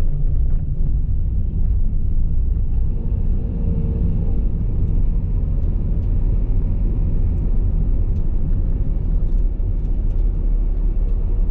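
Steady low vehicle rumble, with a few faint light clicks.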